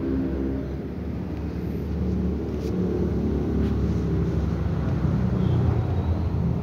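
Steady low rumble of a running engine, with two faint clicks in the middle.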